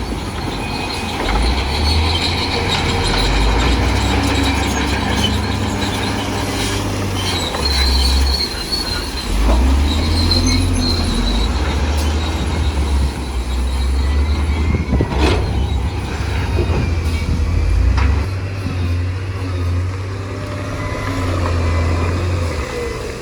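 Crawler bulldozer working, its steel tracks squealing over a low diesel engine rumble, with a few metallic knocks partway through.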